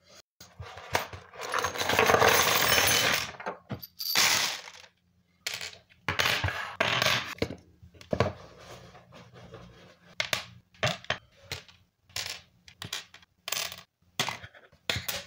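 Metal Meccano construction-set parts rattling and clinking: a dense rattle of loose pieces for about two seconds near the start, then a string of short, irregular clinks and taps as parts are set down.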